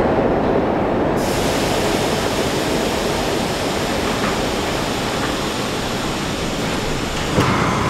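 New York City Subway train running on the tracks in a tunnel: a steady, loud rumbling rush of wheels on rail. A brighter hiss joins about a second in, and there is a single sharp click near the end.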